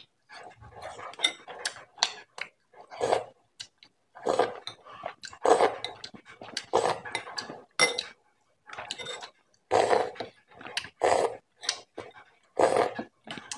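Close-miked eating sounds of beef paya with roti: wet chewing, slurping and sucking in short irregular bursts, with a metal spoon scraping against the boiled beef leg bone.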